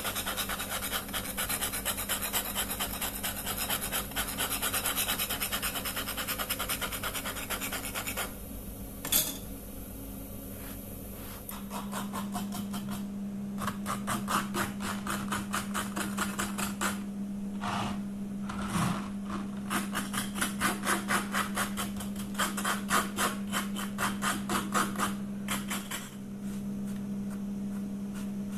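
A cloth rubbed briskly over the crust of a flatbread in its pan, a fast steady scratching. After a sharp knock about nine seconds in, a knife saws through the baked flatbread on a wooden board in quick rasping strokes over a steady low hum.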